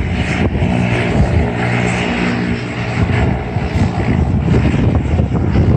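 Single-engine floatplane's engine and propeller running steadily as it sets off across the water on its takeoff run.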